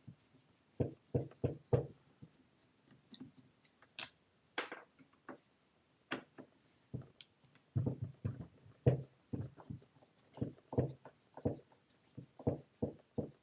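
Irregular small clicks and knocks of a screwdriver working Phillips screws out of an old rotary hammer drill's housing while the tool is handled, in three short clusters.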